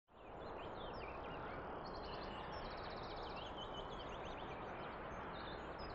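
Faint birdsong: several small birds chirping and trilling over a steady background hiss, fading in just after the start.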